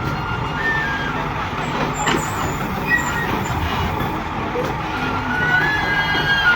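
Busy street traffic: vehicle engines running steadily, with short faint tones now and then above the hum.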